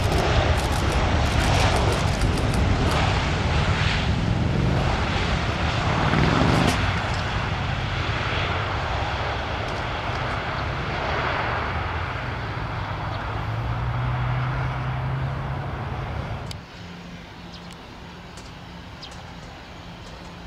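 Airbus A319 airliner's jet engines running at high power as it rolls along the runway, the noise loud and slowly easing. About three-quarters of the way through it drops abruptly to a much quieter steady engine hum.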